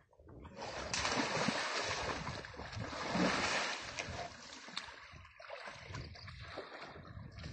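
Muddy water sloshing and splashing around an Asian elephant as it shifts its body in a mud pool. It is loudest in the first few seconds, then eases to a lighter lapping and dripping.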